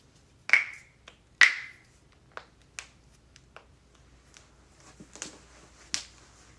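Joints cracking: two loud, sharp pops about a second apart near the start, followed by a scattering of smaller clicks.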